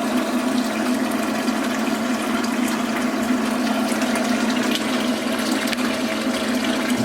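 Small circulation pump humming steadily as it pushes a vinegar descaling solution through a tankless water heater, with the solution running back out of the return hose. This is the acid flush that dissolves calcium scale from the heater.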